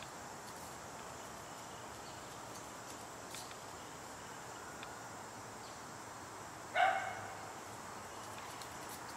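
A dog gives a single short bark about two-thirds of the way in, over a faint, steady outdoor background.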